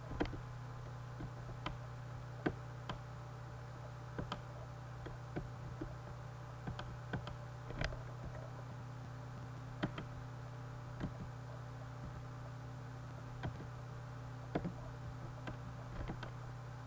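Scattered light clicks from computer use, irregular and roughly one every second or so, over a steady low electrical hum.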